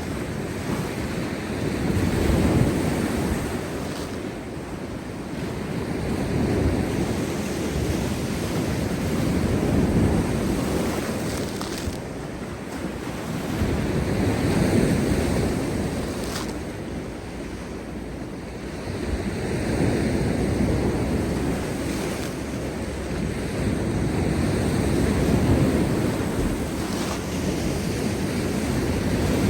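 Heavy sea surf breaking on rocks, a continuous roar of crashing waves that swells and ebbs every few seconds, with wind buffeting the microphone.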